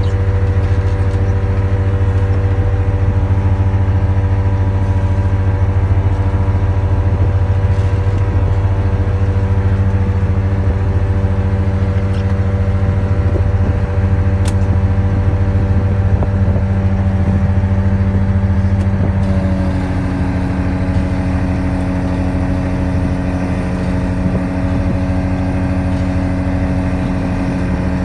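Fishing boat's engine running steadily, its tone shifting about two-thirds of the way through.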